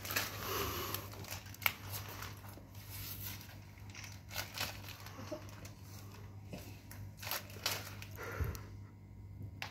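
Scuffing and rustling of a person in breathing apparatus crawling across a concrete floor, with a few sharp clicks and knocks, over a steady low hum.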